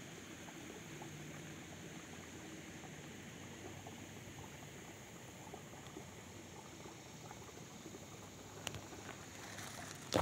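Faint, steady outdoor background hiss with a few soft crackles. Near the end comes a sharp click, then louder knocks of the phone being handled as it is swung away.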